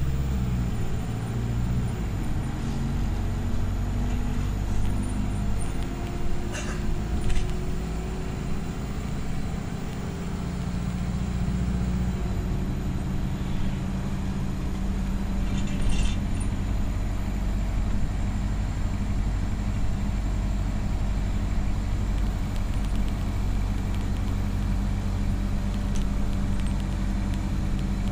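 Bus engine running as the bus drives, heard inside the passenger cabin: a steady low drone whose pitch shifts about twelve seconds in, with brief interior rattles around seven and sixteen seconds in.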